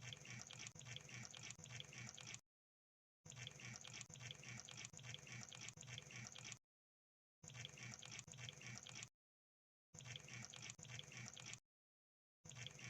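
Faint crab sound effect: bursts of rapid, dense crackling clicks, each lasting one to three seconds, repeated five times with dead silence between them.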